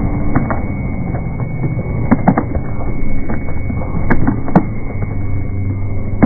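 Slowed-down, deep-pitched crowd and open-air ambience from slow-motion footage, a dull continuous rumble with scattered knocks and clicks, a cluster about two seconds in and two more about four seconds in.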